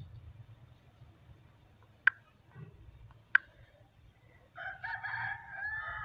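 Two sharp clicks a little over a second apart, then a rooster crowing once near the end, one drawn-out call that falls in pitch as it ends.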